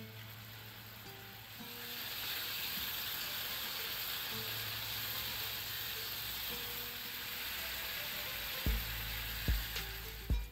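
Diced chicken sizzling in a nonstick frying pan as it is stirred with a silicone spatula; the sizzle swells about a second and a half in and then holds steady. A few low thumps come near the end.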